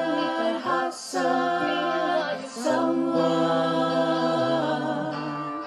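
A group of voices singing long held notes without words, a cappella, in several phrases of one to two seconds each.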